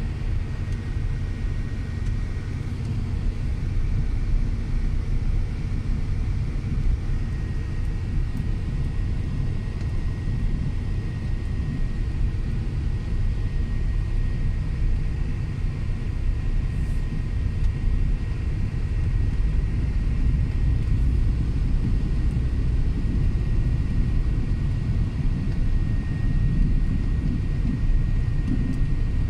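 Car driving slowly on a paved road, heard from inside the cabin: a steady low rumble of engine and tyres, with a thin, steady high tone throughout.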